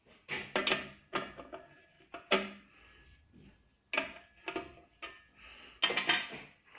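Sharp metallic clinks and knocks of steel spanners being handled and tried on the bolts at the base of a drill press column. There are about a dozen separate hits, irregularly spaced, with short gaps between them.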